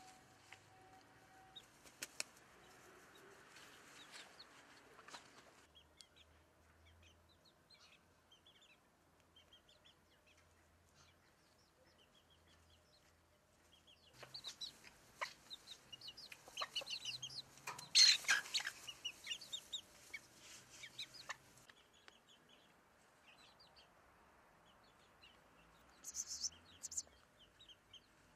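Domestic chickens clucking as they forage, with many short high chirps scattered through. The calls are busiest in the middle stretch, where one louder call stands out about two-thirds of the way in, and the background changes abruptly a few times where the clips are cut.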